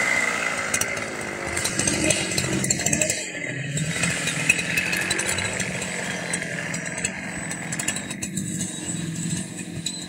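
Petrol chainsaw running, at high speed at the start, easing off about a second in, then its engine speed rising and falling.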